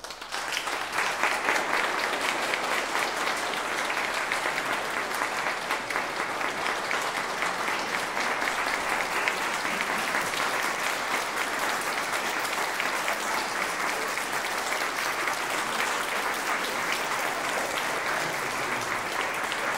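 Audience applause: dense, even clapping that breaks out at once and holds steady throughout.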